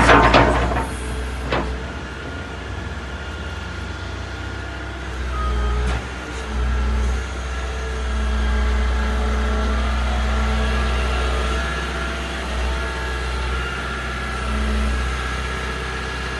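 Liebherr A 311 Litronic wheeled excavator's diesel engine running with a steady low drone and thin steady tones above it, swelling a few times as the hydraulics are worked. A loud clatter right at the start and a sharp knock about a second and a half in.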